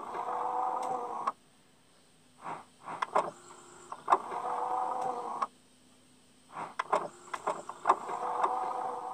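Video intro sound effects: a steady mechanical whirr lasting about a second, heard three times about four seconds apart, with short clicks and swishes between them.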